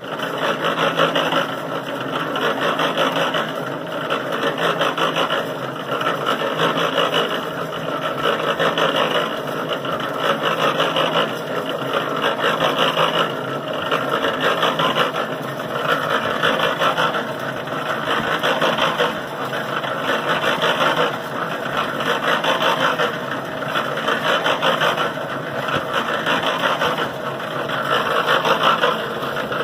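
Electric cement mixer converted to a carrot washer, running with its drum tumbling carrots and water against rubber plucker fingers. A steady motor hum sits under a wet, sloshing tumble that swells about every two seconds as the drum turns.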